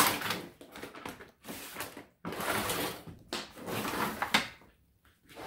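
Handling noise: irregular rustling and knocking, with a sharp click at the start and another about four seconds in.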